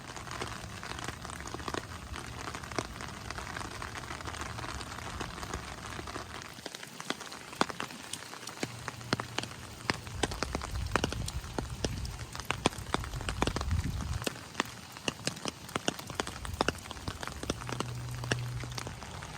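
Steady rain falling, with many individual drops tapping sharply close by. A low rumble comes in from about ten to fourteen seconds in.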